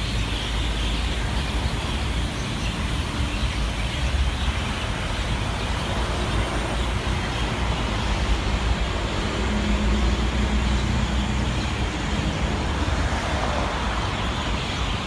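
Dense, steady chatter of a large flock of birds roosting in trees, over a continuous low rumble of city traffic.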